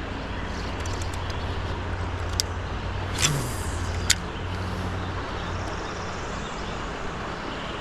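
Steady rushing of river current, with a few sharp clicks and a brief knock between about two and four seconds in.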